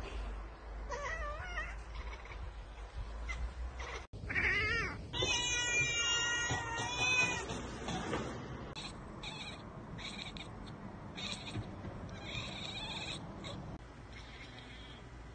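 Domestic cats chattering at birds they can't reach: wavering chirping calls, a sudden break about four seconds in, then a louder drawn-out chirping call, followed by a run of short, quick chattering bursts.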